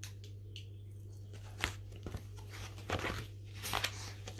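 A large hardback picture book being opened and its pages handled: a few short paper rustles and soft knocks over a steady low hum.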